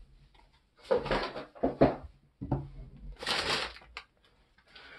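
Crumpled newspaper packing paper rustling and crackling in several bursts as it is gathered up and cleared away, with a sharp knock about two seconds in and a click near the end.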